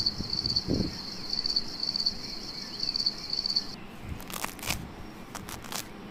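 Insect chirping: a steady high trill of rapid, even pulses that cuts off suddenly a little under four seconds in, followed by a few scattered clicks and rustles.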